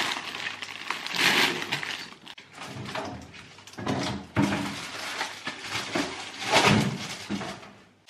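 Plastic grocery bags and packaging rustling and crinkling as groceries are unpacked and put away, with small knocks of items being handled and set down.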